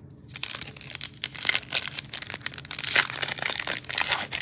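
Foil wrapper of a Panini Mosaic football card pack crinkling and tearing as it is opened by hand, a dense run of crackles starting about half a second in.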